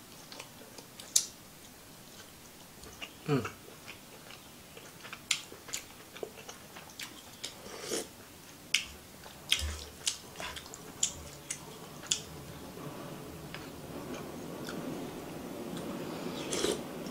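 Close-up mouth sounds of a person eating ramen and sashimi: wet chewing and lip smacks with many short sharp clicks, and some sipping from a spoon.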